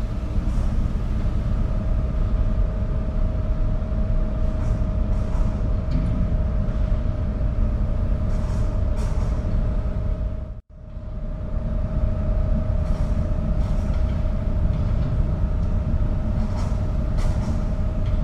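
Ferry engine running: a steady low rumble with a constant hum above it and light rattles. It drops out for an instant about ten seconds in, then a similar passage carries on.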